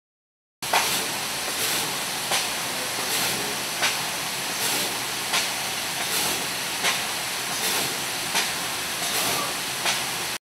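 Laser cutting machine at work on stainless steel railing posts: a steady hiss with a short louder burst about every three-quarters of a second. It starts abruptly about half a second in and cuts off just before the end.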